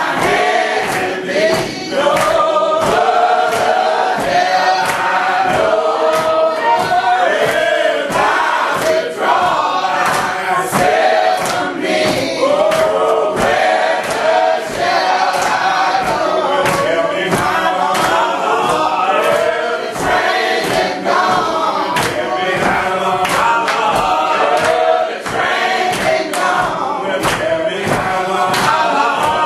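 Congregation singing a gospel song together in a church, many voices at once, with sharp regular beats about twice a second keeping time.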